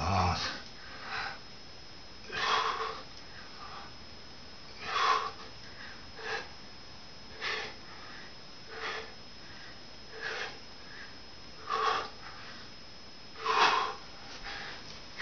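A man breathing hard from the effort of push-ups: a short, forceful breath about every one to two seconds, about ten in all.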